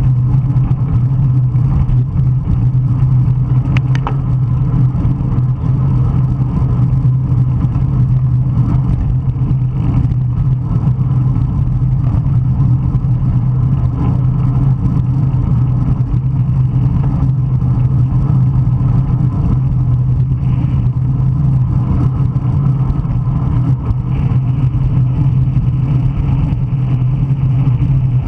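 Strong wind buffeting the microphone of a bicycle-mounted camera during fast riding: a loud, steady low rumble. A brief high tone sounds about four seconds in.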